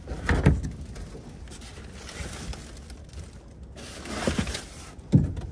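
Rummaging in a plastic wheelie bin: handling and rustling noises as a canvas painting is pulled out, with a few short knocks, the loudest about half a second in and near the end.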